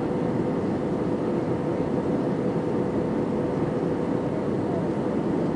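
Steady cabin noise of an Airbus A320 airliner on approach, heard from a window seat over the wing: an even rush of engine and airflow noise with a steady hum running through it.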